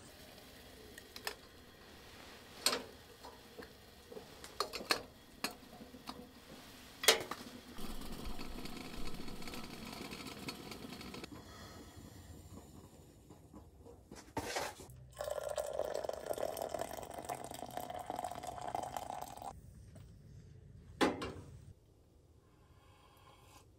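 Camp cookware handled in a small tent: scattered clinks and knocks, then water poured into a container for about four seconds, and one more knock before the sound cuts off near the end.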